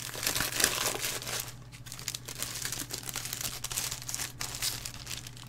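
Clear plastic comic-book bag crinkling and crackling as it is opened by hand. The crinkling is densest in the first second and a half, then thins to scattered crackles.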